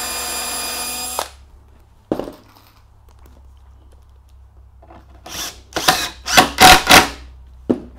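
Cordless drill whining steadily for about a second as it pre-drills through a pine stair tread into its support block, then stopping. About two seconds in there is a single click. In the second half a cordless power tool gives five or six short, louder bursts as screws are driven through the tread into the block.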